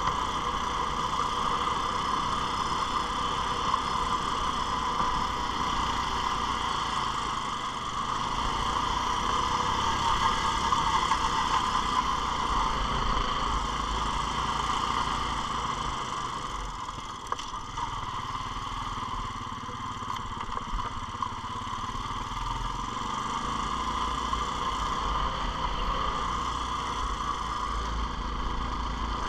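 ATV engine running steadily while riding along a snowy trail. It drops for a few seconds past the middle, then picks back up.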